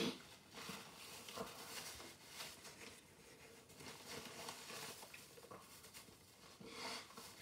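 The tail of a forceful nose blow into a paper towel right at the start, then soft rustling and crinkling of the paper towel as it is folded. A second, shorter nose blow into it near the end.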